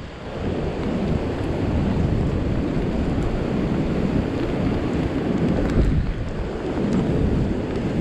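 Strong wind from the approaching tropical storm Pabuk blowing across the microphone, a loud continuous rush of noise, with sea surf beneath it.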